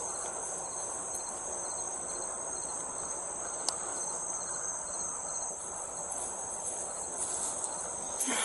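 Steady, high-pitched chorus of night-singing insects, with one brief click a little under four seconds in.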